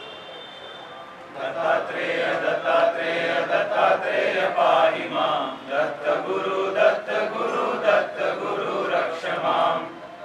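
A group of voices chanting a mantra together, starting about a second and a half in.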